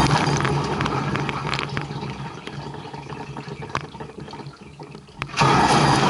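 Dishwasher wash cycle heard from inside the tub: water spraying from the spray arms against the racks and dishes over the low hum of the wash pump. The spray dies away over about five seconds to drips and light tapping, then starts again suddenly near the end.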